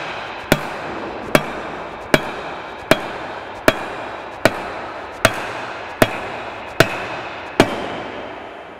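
Hammer tapping a spreader beater gearbox part down into place, ten steady strikes about one every 0.8 seconds, each ringing briefly on the metal. The last strike lands kind of solid, the sign that the part is seated.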